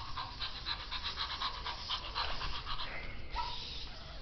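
Zoomer robot puppy walking over a hardwood floor: a fast, busy run of short clicks and puffs from its leg motors and its electronic dog panting.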